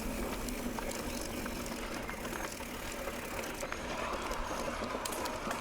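Mountain bike rolling over a rough dirt forest road, with tyre noise and frequent small rattles and clicks from the bike.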